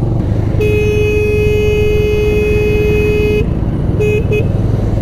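A vehicle horn sounds one long steady blast of nearly three seconds, then two short toots about a second later, over the steady rumble of a motorcycle engine and wind.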